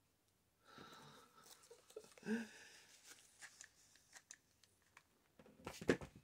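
Fabric and paper scraps rustling and crinkling as they are handled on a journal page, with scattered light clicks and taps. Near the end there is a short cluster of louder knocks as a hot glue gun is set down on a cutting mat.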